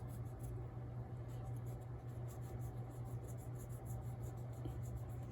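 Quick repeated scratchy rubbing strokes as the commutator of a small model-train motor is scrubbed clean, over a steady low hum.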